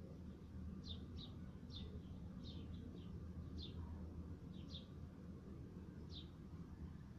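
A small bird chirping: short high chirps that drop quickly in pitch, about ten of them at irregular spacing, roughly one or two a second. A faint steady low hum runs underneath.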